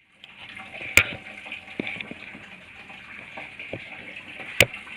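Coolant running out of an opened radiator drain cock in a steady stream, with two sharp clicks, one about a second in and one near the end.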